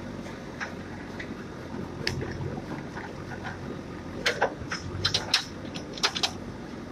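JCB digger's diesel engine running steadily. About four seconds in come a quick series of sharp knocks and cracks as the bucket works through the soil and tree roots.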